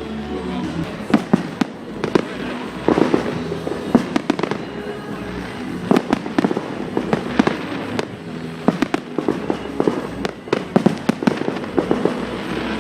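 Aerial fireworks bursting in an irregular, rapid series of sharp bangs, several a second at times, with crackling between the bangs.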